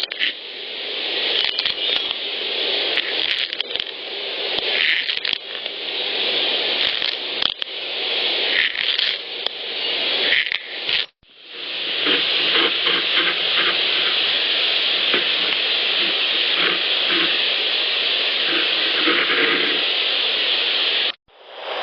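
Rough, continuous scratching from outdoor field recordings, which the recordist likens to Velcro being ripped or a tree being shredded and attributes to Sasquatch. It comes as separate clips: one cuts off sharply about eleven seconds in, the next follows at once and runs until just before the end, where another begins.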